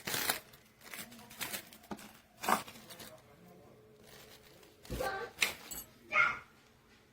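Plastic or paper packaging rustling and crinkling in several short, irregular bursts as it is handled.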